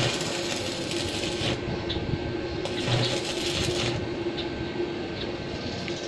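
Stick welding of steel window-grill bars: the arc crackles and sizzles in two bursts, one in the first second and a half and another of just over a second around three seconds in, over a steady low hum.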